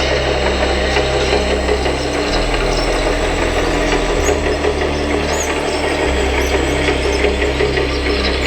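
Remote-control hydraulic excavator running: the whir of its hydraulic pump and motors, with small squeaks from the working arm.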